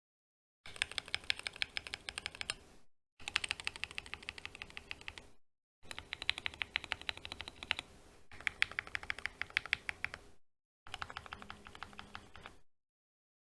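Fast typing on a Synthesis60 mechanical keyboard with lightly lubed Jwick Black linear switches and Domikey SA-profile keycaps: rapid keystrokes in about five bursts of roughly two seconds each, separated by short gaps of dead silence.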